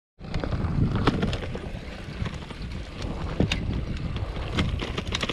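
Gravel bike being ridden over a bumpy dirt track: wind rumbling on the handlebar-mounted action camera's microphone, with frequent clicks and rattles from the bike jolting over the rough ground.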